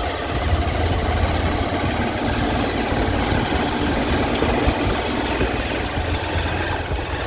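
A motor vehicle's engine running steadily at low speed as it travels over a rough dirt road, with a constant low rumble and road noise.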